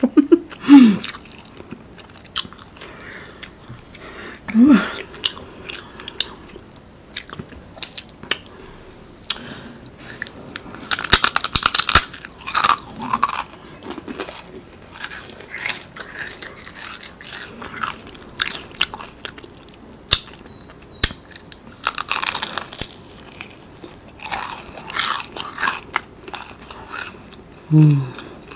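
Close-miked chewing and crunchy bites of fried Chinese takeout, including a fried wonton, with loud clusters of crunching about 11 and 22 seconds in. A few short hums are in between.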